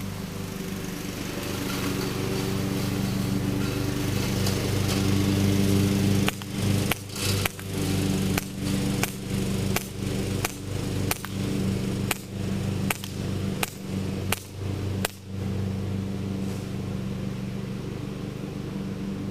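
Crosman Air Mag C11 CO2 pistol fired about thirteen times in quick succession, one sharp pop every half second to second, starting about six seconds in. A steady engine hum runs underneath.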